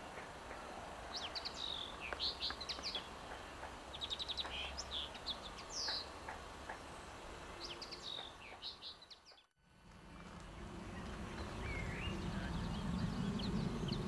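Small songbird giving short, high chirps and quick twittering trills for the first eight seconds or so. After a brief break about nine and a half seconds in, a steady low rumble rises, with a few faint high bird calls over it.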